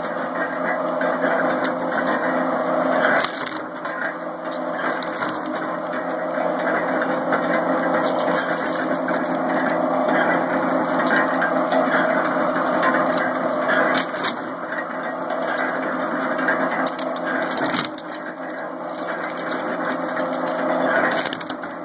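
Scrap-metal alligator shear running with a steady hum while it chops up firearms fed into its jaw. Sharp cracks and metallic clinks come now and then as barrels and parts are cut through and pieces drop.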